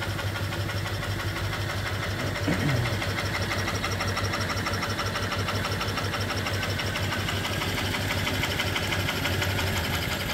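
Single-cylinder reproduction 1880s steam engine (3-inch bore, 4-inch stroke) running steadily on steam from its vertical boiler, with a fast, even beat. A brief falling tone sounds about two and a half seconds in.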